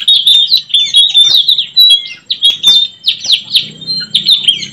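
Blue-rumped parrots (nuri tanau) calling in a rapid run of high-pitched chirps. Each is a quick note sweeping down in pitch, several a second and overlapping.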